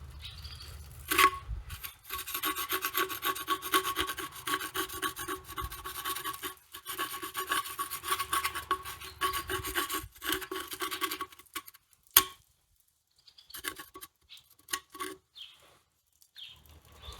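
Hand scrubbing or scraping on a Caterpillar D4's water-pump pipe to clean off rust and dirt and find a leak. A fast, even run of strokes starts about two seconds in and stops a few seconds before the end. There is a sharp knock just before the strokes begin and another just after they stop.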